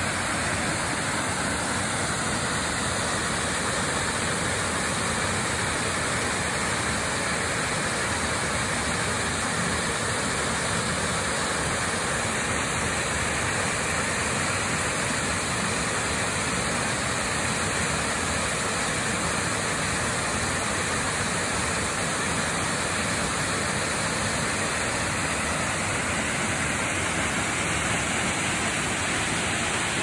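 Waterfall pouring over rock into a plunge pool: a steady, unbroken rush of falling water.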